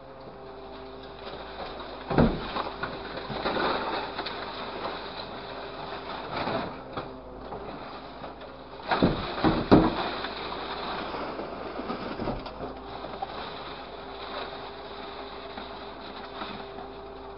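Scrap metal clattering and crashing as a hydraulic orange-peel grapple drops and works loads of it into a steel container. The loudest crashes come about two seconds in and again around nine to ten seconds, over the steady hum of the machine running.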